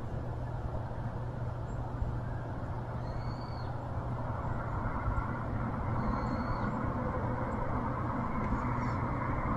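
Steady low rumble of vehicle traffic or an engine running, growing slightly louder about halfway through, with a short high chirp repeating every three seconds or so.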